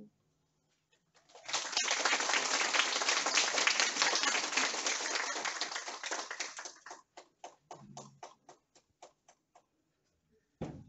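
Audience applauding: the clapping starts about a second in, holds for several seconds, then thins out to scattered single claps and dies away. A short low thump comes near the end.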